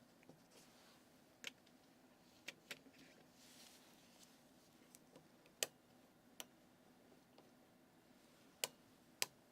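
Faint, irregularly spaced clicks from handling a surgical torque wrench and its connector during dental implant placement, over a quiet background hiss.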